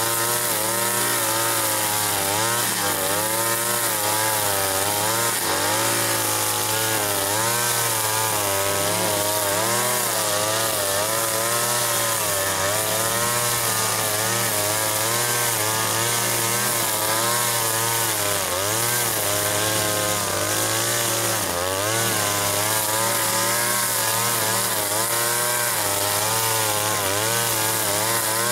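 Petrol chainsaw running continuously, its engine pitch rising and falling in small waves as it works.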